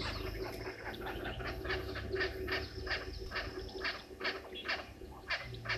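Natal spurfowls calling: a rapid run of harsh, grating calls, several a second.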